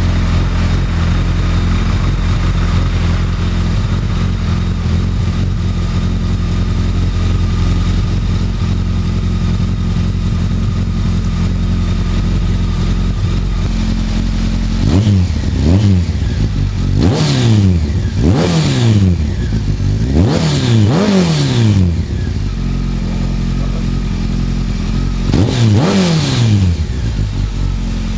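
Honda CBR1100XX's inline-four engine through an aftermarket Scorpion exhaust, idling steadily, then blipped several times with the throttle from about halfway on. Each rev climbs and falls back to idle, and there is a last one near the end.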